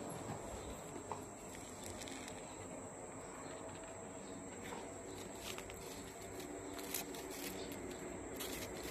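Outdoor ambience dominated by a steady, high-pitched insect drone, with a few faint clicks.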